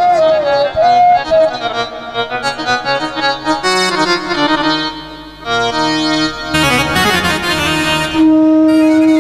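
Baul folk ensemble playing an instrumental interlude: a reed keyboard (harmonium) holding sustained chords, with an ornamented bamboo flute melody that ends about a second in. A brief noisy flourish comes about seven seconds in, and the chords are held again near the end.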